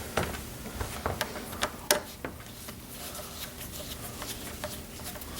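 Hand screwdriver working the screws out of a door's metal strike plate: a few sharp clicks in the first two seconds, the loudest about two seconds in, then faint, light ticking.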